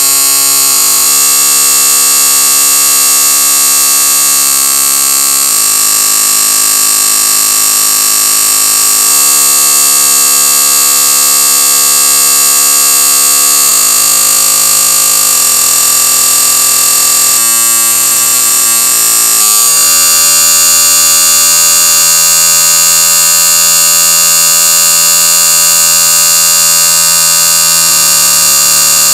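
Marbles spinning around in a bowl, slowed down: a loud, harsh, alarm-like drone of many steady tones that shifts to a new set of pitches every few seconds, with a wavering, stuttering stretch about two-thirds of the way through.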